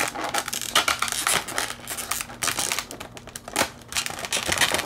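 Clear plastic blister packaging crinkling and crackling in irregular bursts as hands flex and pry it open.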